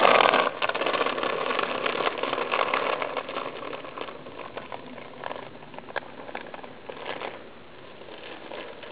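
A child's small bicycle rolling along a grit-strewn asphalt road, its tyres crunching and its chain and frame rattling with a patter of small clicks, fading over the first few seconds as the bike moves away.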